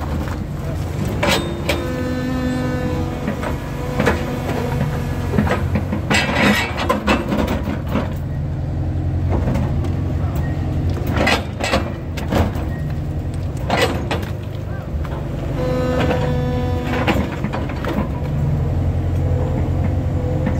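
Cat excavator's diesel engine running under load with hydraulic whine, heard from the cab, while its rock-breaking attachment strikes and crushes large stones in several bursts of hard knocks.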